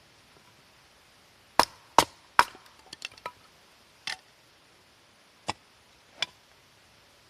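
Wood being chopped with a blade: three sharp strikes in quick succession, then lighter knocks and a few single strikes spaced out.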